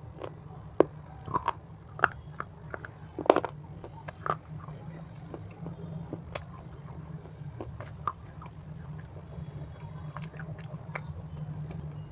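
A person chewing crunchy snack food close to the microphone: sharp crunches in the first few seconds, then softer, quieter chewing, over a steady low hum.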